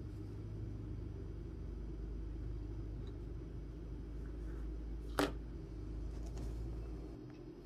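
Faint scratching of a pen writing on notebook paper over a steady low hum, with one sharp click a little after five seconds in.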